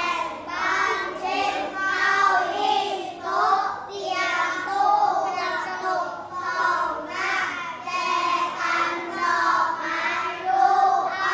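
A class of young children reading aloud together in unison, in Thai.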